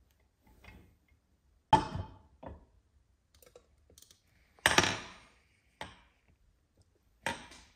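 Top half of a Rotax 787 crankcase being set onto the bottom half and settled: about five separate metal clunks and knocks. The loudest comes a little past halfway, with a short ring after it.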